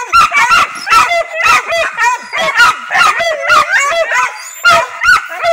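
Hunting dogs yelping and barking in a rapid, high-pitched run, several calls a second.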